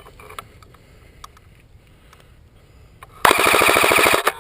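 Airsoft electric rifle firing one full-auto burst of about a second: a rapid, even rattle of shots, starting about three seconds in and cutting off sharply.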